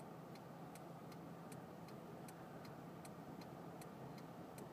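Faint, even ticking about two to three times a second: a car's turn-signal or hazard flasher clicking inside the cabin of the out-of-gas car, over a low steady hum.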